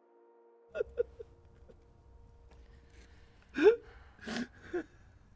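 A man sobbing in grief: short catching whimpers, then a loud rising wail about three and a half seconds in, followed by gasping, sobbing breaths.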